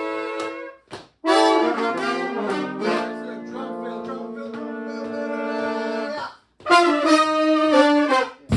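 Horn section of trombone and saxophones playing held chords together, cut off in short breaks: a brief stab about a second in, a long chord that moves and then holds, and a shorter chord near the end.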